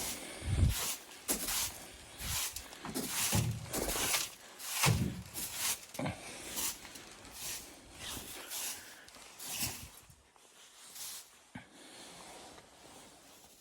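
Footsteps crunching through snow, about two steps a second, which stop about ten seconds in.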